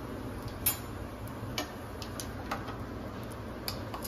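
A few sharp, light clicks, roughly one a second, over a steady low hum.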